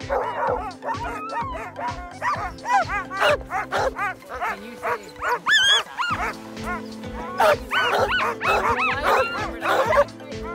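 Alaskan sled dogs in harness yipping and barking excitedly, many short rising-and-falling calls one after another, over background music with a steady beat.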